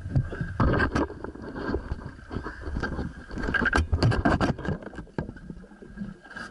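Close handling noise: a camera knocking and scraping against a wetsuit, scuba gear and wooden boat planks, a rapid irregular run of clicks and bumps over a low rumble, thickest about a second in and again around four seconds, then easing off.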